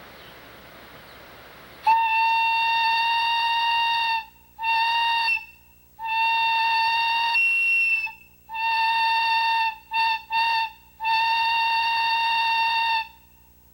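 A 1½-inch Lonergan plain steam whistle blown on compressed air. It sounds one steady, high single tone in seven blasts: five of a second or two, with two quick toots between the last two. A steady hiss comes before the first blast.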